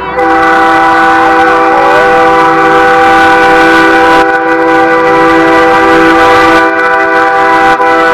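Semi truck's chord air horn sounding in one long, loud blast, several tones at once.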